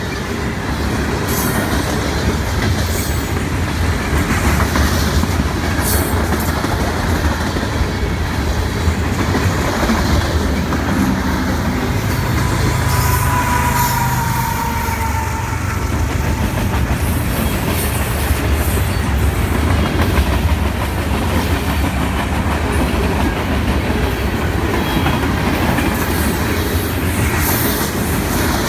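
Freight train passing close by: steady rumble and clatter of freight-car wheels on the rails, with sharp clicks. About halfway through, the mid-train CSX GE ES44AH diesel locomotive goes past, adding a steady engine hum for a few seconds before the freight cars return.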